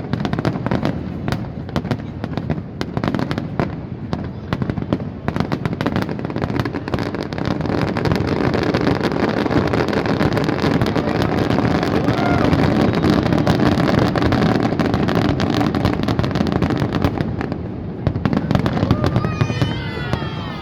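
Fireworks going off in rapid crackling pops and bangs, building into a dense, louder barrage for several seconds in the middle before thinning out.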